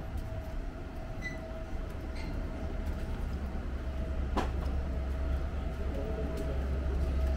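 A steady low mechanical rumble with a faint steady hum above it, and one sharp click about four and a half seconds in.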